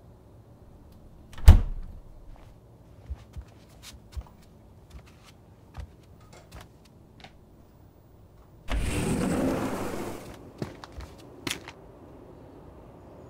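A refrigerator door thuds shut, then small clicks and knocks of an egg carton and a bowl being handled on a kitchen counter, and a short rushing noise of under two seconds near the end.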